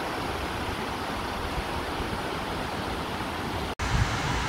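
Steady rushing of a tall waterfall cascading down a cliff. It breaks off for an instant near the end, after which low rumbles come in.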